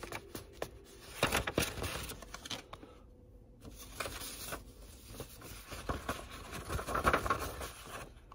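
Sheets of paper rustling and crinkling as they are handled and folded to pour loose flocking fibres back into a tube. There are small clicks and taps throughout, with louder spells of rustling about a second in and again near the end.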